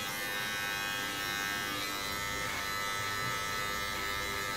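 Electric hair clippers buzzing steadily as they trim a man's beard.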